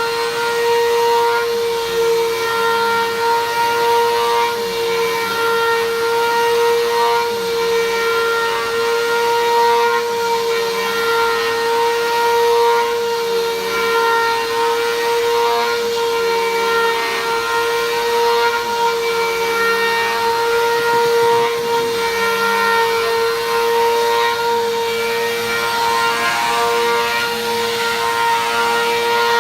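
Bissell vacuum cleaner running on a rug, its motor giving a steady high whine, with slight dips in the lower tone every couple of seconds as it is worked over the carpet.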